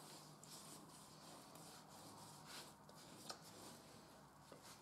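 Very faint rubbing and scraping of a wooden stick being stirred in a plastic bucket, with a small click a little past three seconds in.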